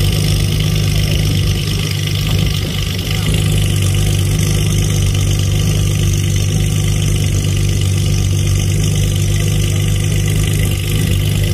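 A car engine idling steadily, a constant low hum with no revving.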